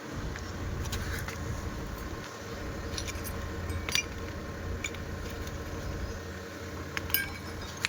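BMW X1 diesel engine running with a steady low rumble, broken by a few sharp metallic clinks, the loudest about four seconds in and again near the end.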